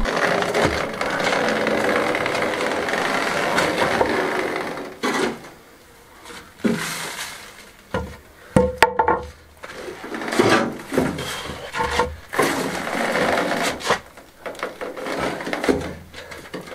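A wheelbarrow loaded with a heavy stone rumbling as it is wheeled over stone paving for the first four seconds or so. Then comes a run of irregular scraping, rubbing and sharp knocks as a wooden plank is worked against the barrow and the stone to lever it out.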